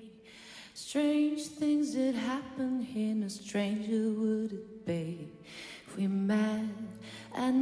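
A woman singing a slow melody into a microphone, in long held notes that bend and slide. A low steady tone comes in near the end.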